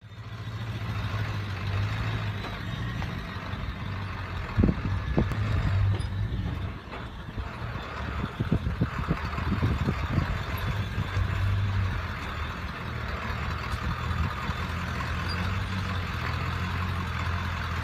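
A 4x4 camper van's engine running steadily at low speed as the van crawls over bare rock, with scattered knocks about four to six seconds in and again around eight to ten seconds in.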